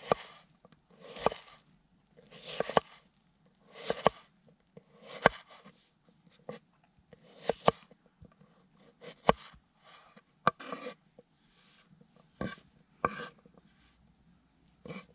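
A knife slicing through raw potato on a wooden cutting board: about a dozen cuts, each a short crunchy swish ending in a sharp knock of the blade on the wood, roughly one a second and less regular towards the end.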